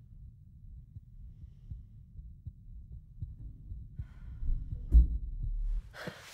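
Low throbbing rumble from the film's soundtrack, swelling gradually and peaking in a deep boom about five seconds in.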